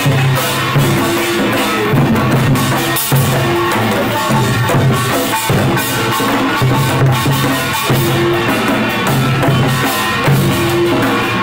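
Korean pungmul percussion band playing a driving rhythm on the march, with sogo hand drums struck with sticks among the ensemble.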